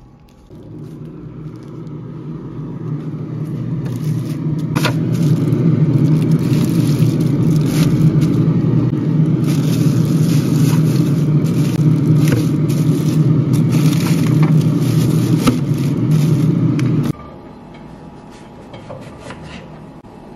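Loud steady rumble with crackling of a plastic bag around fish as it is handled close to the microphone; the rumble builds over the first few seconds and cuts off suddenly about three seconds before the end.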